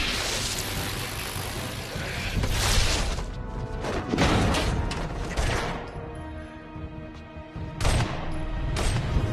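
Action-scene soundtrack: dramatic score under a series of heavy booms and crashes from a superpowered fight, opening with a crackling electric blast.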